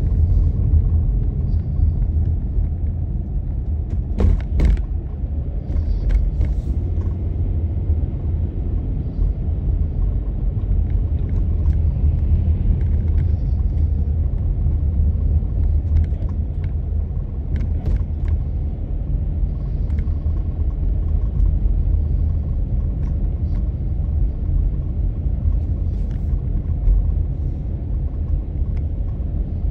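Car driving: a steady low rumble of road and engine noise, with a few brief clicks or knocks.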